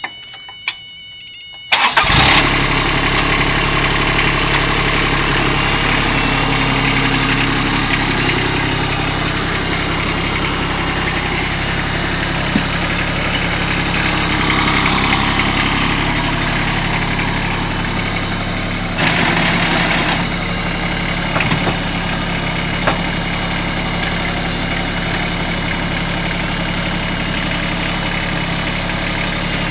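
John Deere X495 garden tractor's three-cylinder diesel engine cranks and catches about two seconds in, after a brief electronic tone, then runs steadily as the tractor is driven. It is briefly louder around nineteen seconds in.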